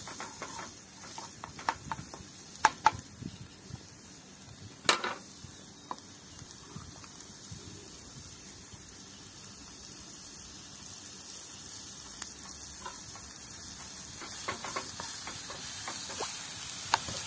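Chopped onion and tomato sizzling in a nonstick frying pan on a portable gas stove, the sizzle growing slowly louder. A wooden spatula scrapes and taps the pan in the first few seconds and again near the end, with a single louder knock about five seconds in.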